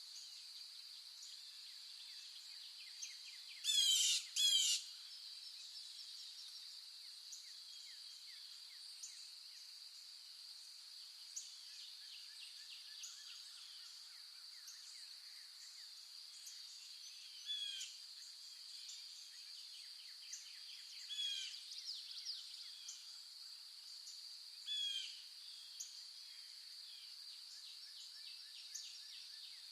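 Wildlife ambience: a steady high-pitched buzz with scattered small chirps, and a few louder calls made of quick falling notes, two close together near the start and several more spread through.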